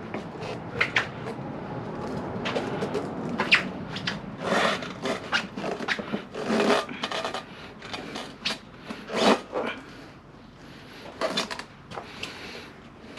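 Tire-mounting tools scraping and knocking against a motorcycle wheel rim as the tire bead is levered on by hand: irregular clunks and scrapes, the loudest about three and a half and nine seconds in.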